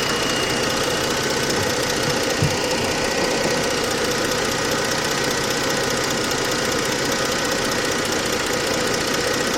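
Jeep Grand Cherokee's 3.7-litre V6 engine idling steadily.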